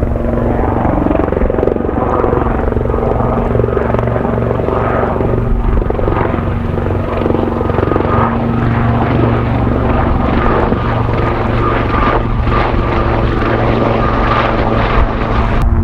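Japan Coast Guard helicopter running with a steady rotor and turbine sound, loud and continuous, with a steady whine, and strong wind rumbling on the microphone.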